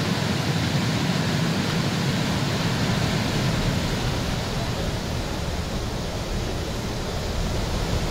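A raging 20-foot waterfall carrying a large volume of water: a steady, dense rush with a deep rumble underneath, a little quieter from about halfway through.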